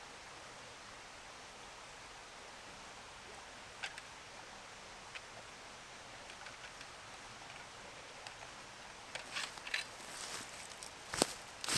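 Steady faint outdoor hiss with a couple of faint clicks, then crisp rustling and crunching from about nine seconds in, louder near the end, like footsteps or handling in dry leaf litter.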